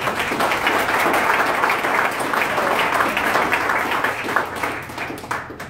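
A small audience applauding, many hands clapping at once; it swells up at the start and dies away near the end.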